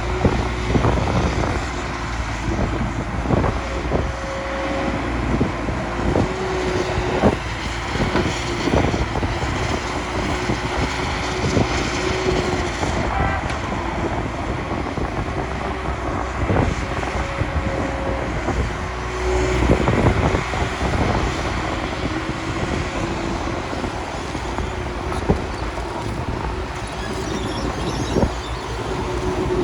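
Diesel engines of heavy earthmoving machinery running steadily, with repeated metallic knocks and clanks throughout.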